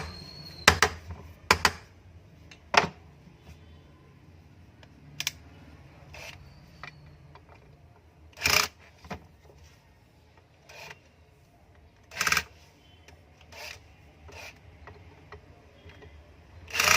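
Screwdriver tightening the screws that fasten a ceiling fan's motor cover: intermittent short metal scrapes and sharp clicks a few seconds apart.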